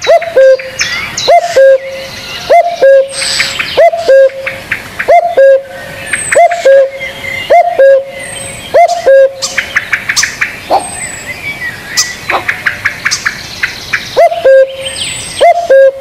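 Spotted dove cooing: a loud, low coo with a quick upward flick at the start, repeated about once a second. The coos stop for a few seconds past the middle and start again near the end. Smaller birds chirp and trill in the background.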